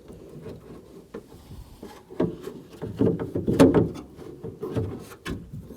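Irregular clicks, knocks and rattles of a door latch and its linkage rod being worked into place inside a car door, with a few sharper knocks about two, three and a half and five seconds in.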